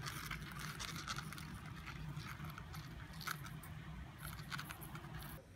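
Stag beetle scrabbling over paper while clutching a felt-tip marker: an irregular run of scratches and ticks from its claws and the pen tip on the paper, over a low steady hum.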